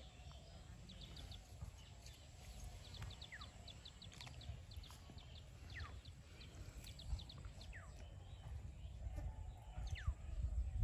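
Birds calling: quick clusters of high chips and single falling whistle notes every second or two, over a low rumble of wind on the microphone.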